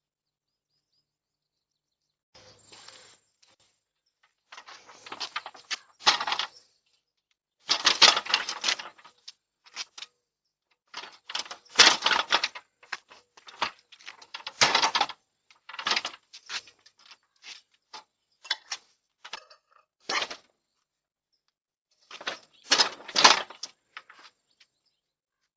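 Irregular bursts of snipping and rustling, like hand pruners clipping twigs with foliage rustling, with short pauses between cuts; the loudest bursts come about 8, 12, 15 and 23 seconds in.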